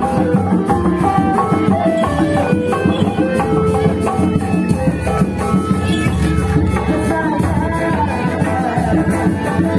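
Loud, steady music accompanying a kuda lumping troupe: a busy percussion rhythm under a stepping melody line.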